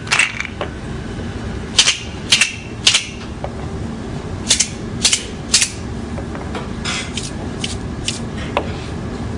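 Montessori sound cylinders, cardboard tubes holding loose filling, shaken to compare their sounds. Each shake is a sharp rattle. The shakes come in quick runs of about three, roughly two a second, and the last ones are fainter.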